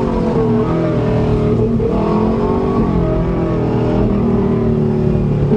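Subaru Legacy's boxer engine pulling hard under throttle while driving, its pitch rising and falling several times as the revs go up and down.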